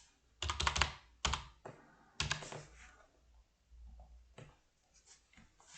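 Computer keyboard keys tapped in short bursts: a quick run of keystrokes about half a second in, a single one just after a second, another run a little after two seconds, then a few fainter taps.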